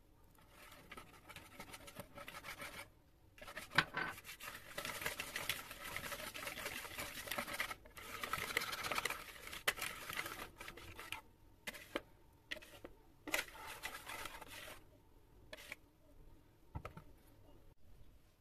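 Wire whisk beating pancake batter in a plastic bowl: fast, rapid clicking and scraping of the wires against the bowl. It comes in several spells with short pauses.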